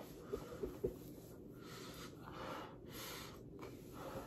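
Faint breathing, with the rustle of a hand rubbing skin and a cotton shirt and a few small clicks in the first second, from a man still suffering the burn of extremely hot noodles.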